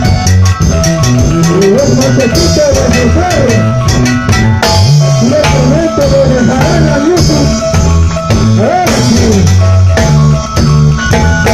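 Live band playing Latin dance music: a steady bass line and drums with timbales and cymbal hits under a wavering lead melody.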